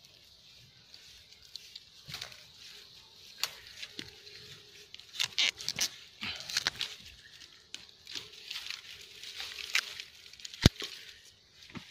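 Leaves rustling and twigs snapping and cracking in irregular bursts as dense brush is pushed through and cut back, with one loud sharp crack near the end.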